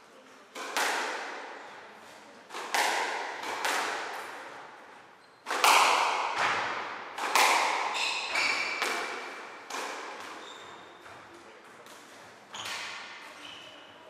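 Squash rally: the hard rubber ball smacked by racquets and hitting the court walls, sharp cracks every second or two, each ringing on in the court's echo. A few short squeaks of shoes on the wooden floor in the middle of the rally.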